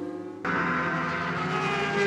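Racing superbike engines at high revs out on the circuit, the pitch gliding gently as the bikes run by. The sound cuts off abruptly about half a second in and a different engine note starts at once.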